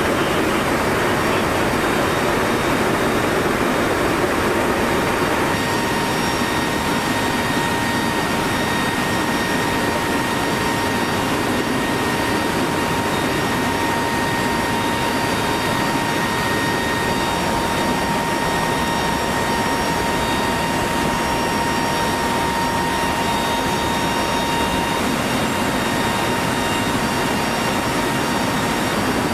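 Lockheed C-130 Hercules's four turboprop engines running steadily in flight, heard inside the cargo hold with the rear ramp open, a constant rush of engine noise and air. A steady high whine comes in a few seconds in and holds.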